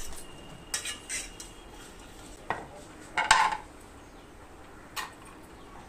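Kitchen utensils and dishes clinking and knocking, five or six separate hits spread out, the loudest about three seconds in with a short ring.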